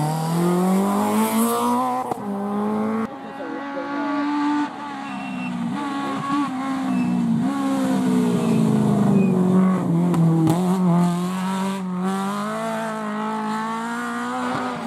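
Rally car engines driven hard, one car after another: the engine note climbs about two seconds, breaks off about three seconds in, sinks slowly and then climbs again near the end.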